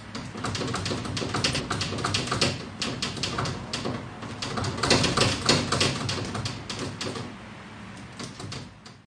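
A cat pawing and scratching rapidly at a glass cabinet door, a fast, irregular clatter of taps that is busiest around the middle and dies down near the end.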